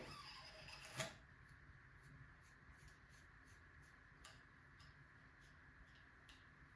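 Near silence broken by a sharp click about a second in and a few faint ticks afterwards, small parts being handled during work on the bike.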